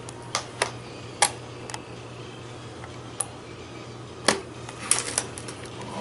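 Plastic magnetic building tiles clicking as they snap together and knock on a tabletop: irregular sharp clicks, a few close together about five seconds in.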